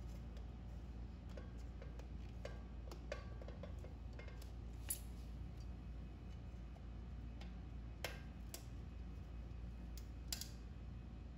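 Scattered short clicks and taps of a black metal clothes rack's parts being handled during assembly, with plastic end caps fitted on the tubes and a leg set down on tile, over a low steady hum.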